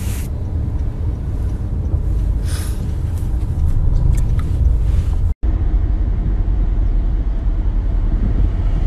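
Steady low rumble of a car cabin, road and engine noise heard through a phone's microphone. It drops out for an instant about five seconds in, then resumes.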